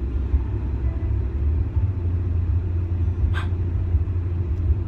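Steady low rumble, with a brief hiss about three and a half seconds in.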